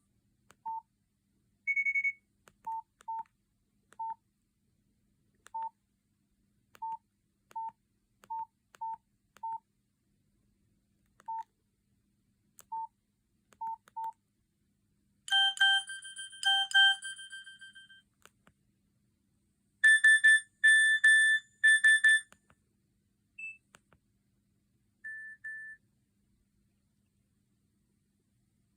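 Nokia 5220 XpressMusic mobile phone beeping: a dozen short key-press beeps at one pitch, spaced irregularly as the keys are pressed, then, about halfway through, short electronic alert tones, a quick run of beeps followed by four louder beeps.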